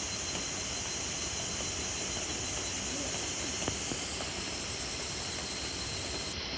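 Steady rain falling on a wooded grove, an even hiss with one light tick about three and a half seconds in.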